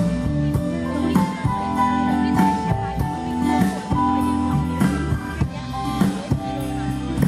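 A live band playing a pop song, with a drum kit keeping a steady beat under guitar and sustained keyboard or bass notes; no singing.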